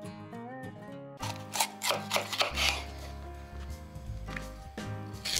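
Kitchen knife slicing a red bell pepper on a wooden cutting board: a series of sharp cutting strokes that start about a second in. Acoustic guitar background music plays throughout.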